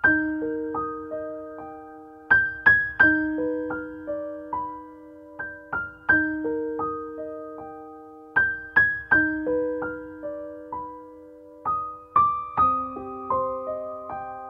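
Background music: a slow, gentle piano melody of single notes that ring out and fade, in phrases that start over about every three seconds.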